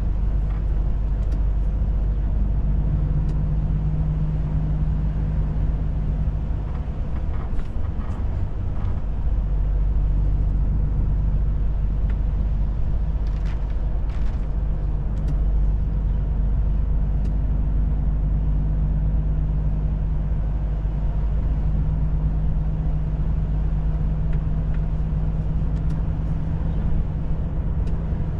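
Volvo FH 500 truck's 13-litre straight-six diesel running steadily under way, a continuous low drone with road noise, heard from inside the cab. The drone dips briefly about seven seconds in, and a few short faint clicks come around then and again near the middle.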